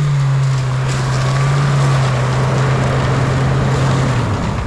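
Off-road 4x4's engine running hard under load in low-range four-wheel drive, a loud steady drone that falls away about four seconds in.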